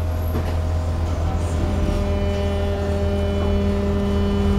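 Inside a Charleroi TEC light-rail tram on the move: a steady low hum from the car. About a second and a half in, a steady droning tone from the traction drive sets in and holds.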